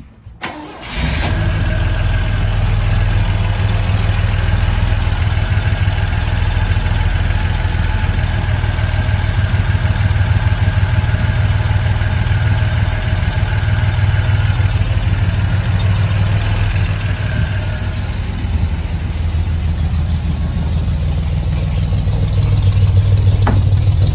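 The 1963 GMC Suburban's 305 V6 engine fires up about a second in and then runs steadily at idle.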